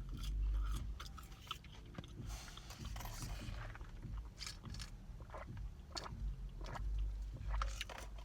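A person chewing a fried chicken sandwich close to the microphone, with many short, wet mouth clicks.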